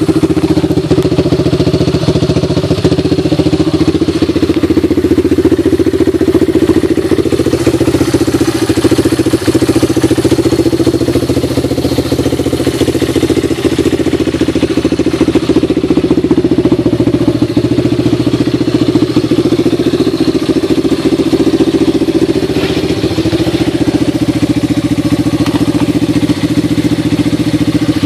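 Yamaha Timberwolf 250 ATV's air-cooled four-stroke single-cylinder engine idling steadily.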